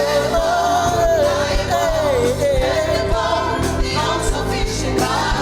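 Gospel praise song: a lead voice holds a long, wavering sung note over a band with a steady drumbeat and a backing choir.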